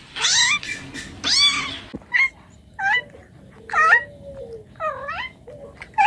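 Domestic cat meowing over and over, about seven short meows roughly a second apart, the first two the loudest.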